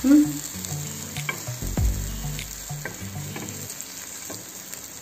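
Egg-soaked bread slices sizzling as they fry in butter on a flat pan, with two dull low thumps, one at the start and one just under two seconds in.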